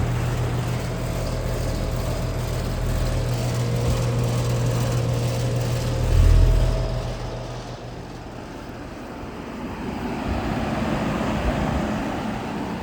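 Outdoor heat pump unit running: a steady low compressor hum with fan noise. About six seconds in there is a brief louder surge, then the hum drops out. A rushing noise swells again near the end.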